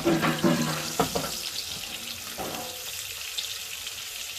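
Pork chop frying in butter and olive oil in a pan, a steady hissing sizzle with oil spattering, with a couple of short knocks in the first second or two.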